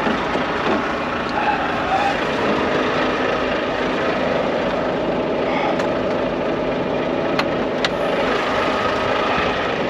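Volvo VNL 760 truck's diesel engine idling steadily, heard at close range beside the cab. A few sharp light clicks come in the second half.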